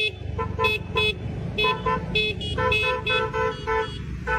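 Motorcycle horns beeping over and over in short toots, several a second, over the low rumble of running engines. The riders sound them to warn one another in thick haze where they can barely see.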